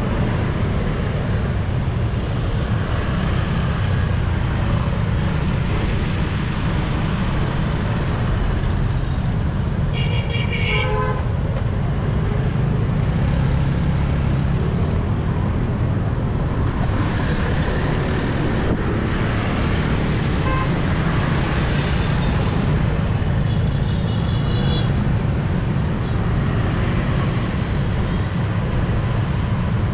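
Steady rumble of dense street traffic heard from a bicycle, with a vehicle horn honking about a third of the way in and a fainter honk later on.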